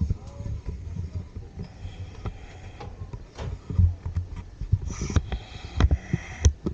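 Wind buffeting the microphone in uneven gusts, with scattered light knocks and scuffs, a few of them close together in the second half.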